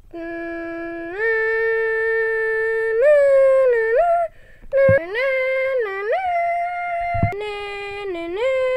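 A person humming a slow wordless melody of long held notes that step up and down, with a short break about halfway through, standing in for the film's music.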